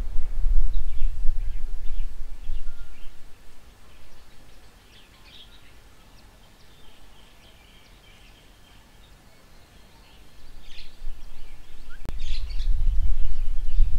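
Small birds chirping and calling at intervals over a low rumble that is strong at first, dies away for several seconds in the middle and returns near the end. A single sharp click about twelve seconds in.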